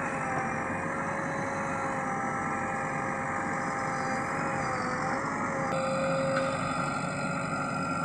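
JCB 3DX backhoe loader working its digging arm: a steady engine and hydraulic drone with a clear whine running through it. The whine dips briefly about five seconds in as the load shifts.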